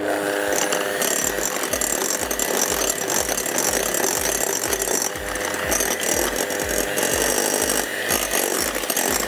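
Electric hand mixer running steadily, its twin beaters whisking egg-and-sugar cake batter in a glass bowl; it starts abruptly and holds a steady whirring rattle.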